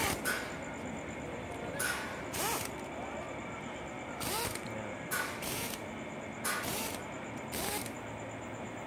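Impact wrench run in a string of short bursts, often in pairs, driving the clutch cover screws down evenly one after another.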